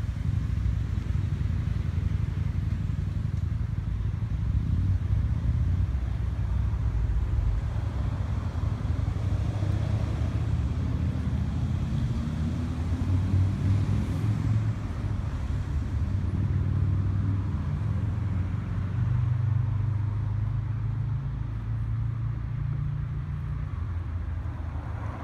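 Steady low rumble of vehicle engine noise, with a note rising in pitch near the middle.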